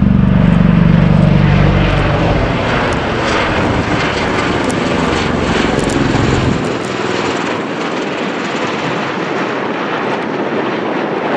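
USAF CV-22 Osprey tiltrotor flying overhead, its proprotors and turboshaft engines making a loud, steady drone. A deep rotor hum is strongest for the first couple of seconds, then eases. The lowest rumble drops away about two-thirds of the way through, leaving a broad rushing noise.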